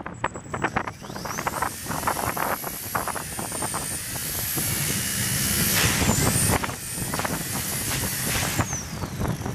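Small electric RC helicopter's motor and rotor whine, the high pitch wandering up and down and dipping sharply about six seconds in as the throttle changes. Strong wind buffets the microphone in gusts.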